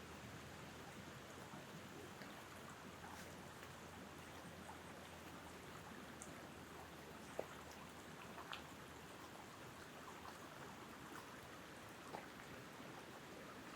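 Wind blowing through tree tops: a faint, steady rushing. A few short sharp clicks, two about halfway through and one near the end.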